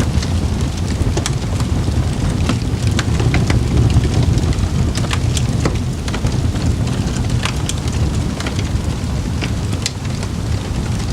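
Campfire burning: irregular sharp crackles and pops from the wood over a steady low rumble of the flames.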